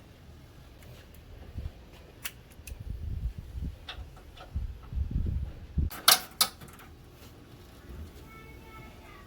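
Scattered sharp clicks and knocks of parts and tools being handled, the loudest a pair about six seconds in, over low rumbling handling noise that dies away after about six seconds.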